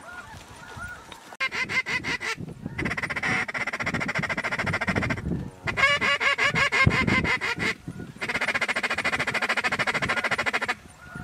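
A large flock of snow geese calling, a dense chorus of high honks. It starts about a second in and runs in a few stretches that break off abruptly before cutting out near the end.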